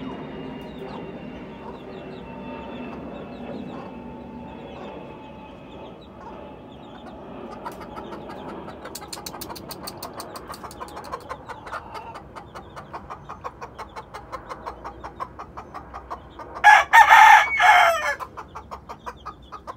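Blueface Hatch gamefowl rooster crowing once, loud, near the end, for about a second and a half. Fainter chicken sounds and rapid faint ticking before it.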